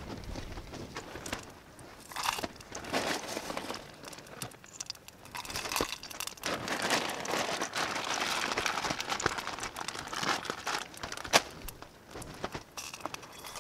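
Plastic food packaging crinkling and rustling as it is handled and opened, with small clicks throughout and one sharp tap about eleven seconds in.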